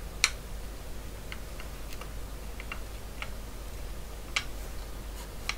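Light clicks and taps from an HP 9830A cassette tape drive mechanism, metal frame and circuit board, being handled and turned over by hand. A sharper click comes about a quarter second in and again a little after four seconds, with fainter scattered ticks between.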